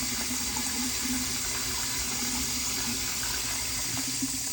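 Water running steadily from a Price Pfister faucet into the sink, a test of the faucet's newly replaced valve cartridge.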